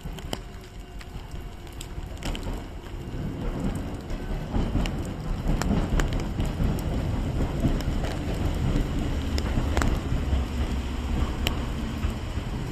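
Electric train rumbling along the track with scattered clicks, the rumble building over the first few seconds and staying strong.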